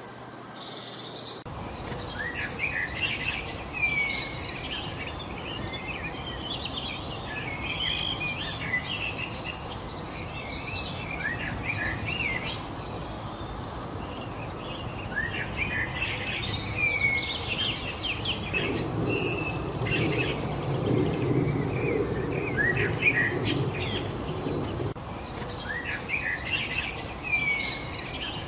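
A chorus of songbirds chirping and singing over one another in quick, overlapping phrases, over a steady background hiss; it begins abruptly about a second and a half in. A low rumble swells underneath for several seconds past the middle.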